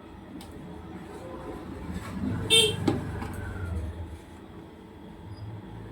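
Road traffic: a vehicle passes with a low rumble, and a short, loud horn honk sounds about two and a half seconds in.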